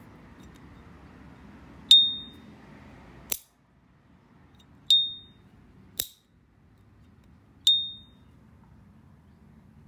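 S.T. Dupont Line 2 gold-plated lighter's lid flicked open three times, each opening giving its clear, high ringing 'ping' that dies away in about half a second. Between the pings the lid is snapped shut twice with a sharp click.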